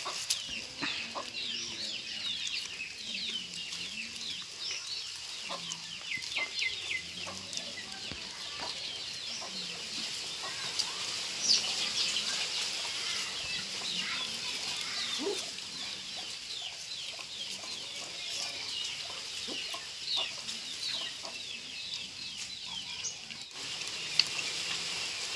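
Birds chirping: a dense, steady chatter of short falling chirps, with some lower clucking sounds and a few sharp clicks, the loudest about halfway through and near the end.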